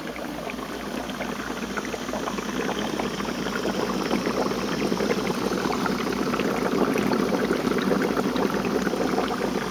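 Air bubbles rising and bubbling through a Surf8 floating upflow algae scrubber, fed by a Hailea ACO-9730 air pump. A steady, crackly bubbling that grows louder as it is approached. The growth compartments are full of algae, which muffles the bubbling and keeps it fairly quiet.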